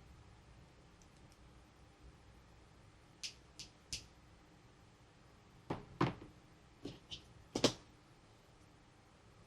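Toys and packaging being handled for an unboxing: three light clicks, then a few seconds later a cluster of five louder knocks and taps, the last the loudest.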